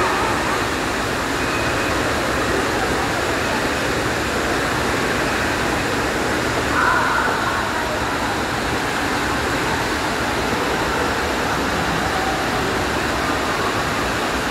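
Steady rushing and splashing of water running out of an indoor pool's water slide and a rock waterfall into the pool.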